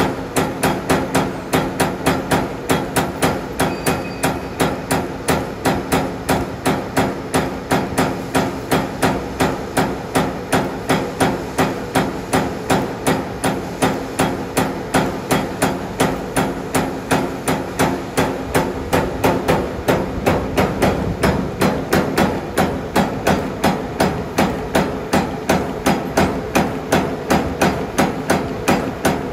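Ritec CNC electric servo turret punch press punching a metal sheet. A steady, even run of sharp metal strikes comes at about three a second, over a steady low machine hum.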